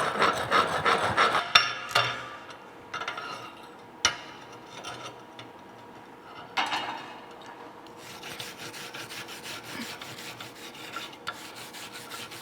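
Slag being scraped and scrubbed off a freshly laid root-pass weld bead on steel plate. The rapid rasping strokes are loudest for the first couple of seconds, then come in quieter bursts, with a couple of sharp knocks.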